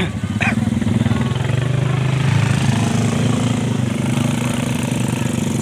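ATV engine running steadily under way, getting louder about half a second in.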